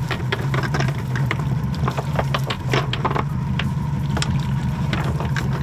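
Boat motor running steadily, with water splashing and many short sharp knocks and clatters throughout.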